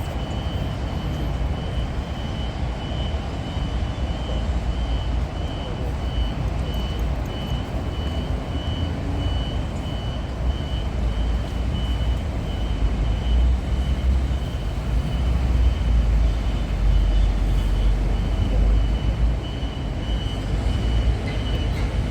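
Engine rumble of the 高電001 rail maintenance vehicle as it moves during shunting, growing louder in the second half. A high beep repeats steadily over it throughout.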